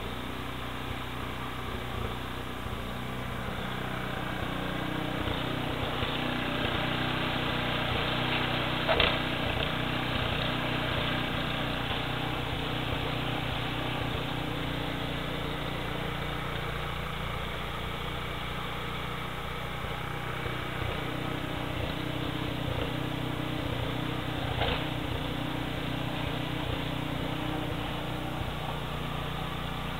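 Snowblower engine running steadily out of sight, its note wavering a little as it works. A sharp knock stands out about nine seconds in, and a smaller one later.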